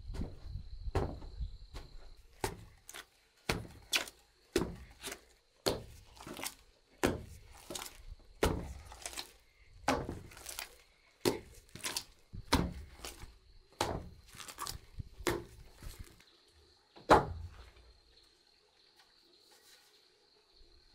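Long wooden pestle pounding sticky rice dough in a wooden mortar: dull thuds, roughly one to two a second, that stop about three-quarters of the way through after one last, loudest thud.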